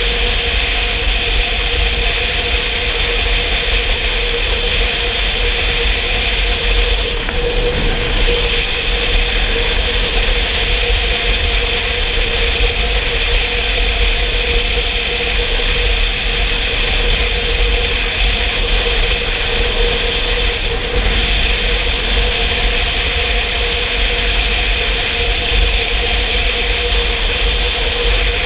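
Motorcycle riding at steady speed on the open road: a steady engine and road drone under heavy wind rumble on the microphone.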